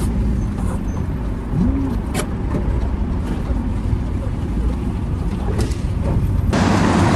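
Steady low engine rumble, with a few faint clicks. About six and a half seconds in, a louder hissing noise joins it.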